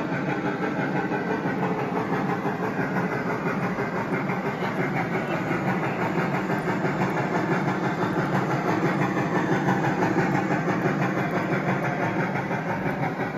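G scale model train running along the track with a steady running noise that swells slightly about ten seconds in, as it passes close.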